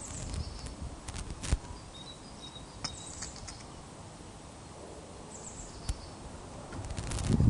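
Osprey feeding on a fish at its stick nest: a scattered series of sharp clicks and snaps from bill and nest material, over steady outdoor hiss. A few short, very high bird chirps come through faintly, and a low rumble builds near the end.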